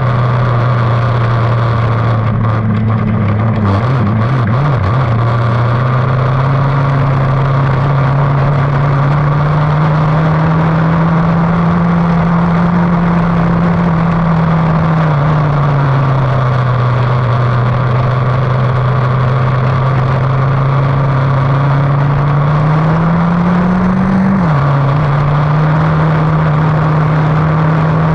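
Lightning sprint race car engine running hard and loud, its pitch drifting slowly up and down as the throttle changes; about three-quarters of the way through it climbs briefly, then drops sharply.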